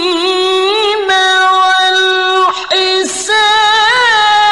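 A male Quran reciter chanting in melodic tilawah style, holding long ornamented notes in a high register. The line breaks briefly about two and a half seconds in, then a new phrase starts.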